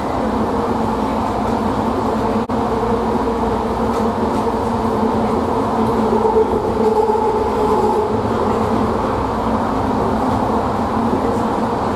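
Bombardier ART linear-motor light-metro car running between stations, heard from inside the car: a steady running rumble with a constant hum.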